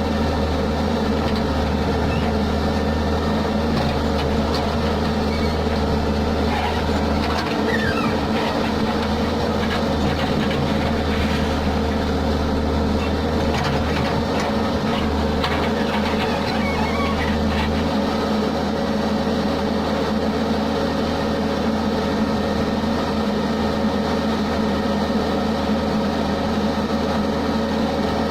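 Diesel engine of a Case backhoe loader running steadily while it works. Its low drone dips a few times, around 8 and 15 seconds in, and stays lower from about 18 seconds.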